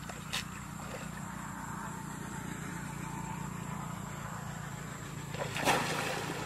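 Shallow paddy water splashes hard once, about five and a half seconds in, as hands grab at a fish under the surface. A steady low hum runs underneath.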